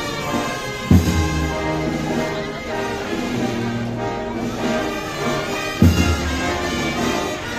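Brass band playing a slow processional march, with held chords and two heavy drum beats about five seconds apart.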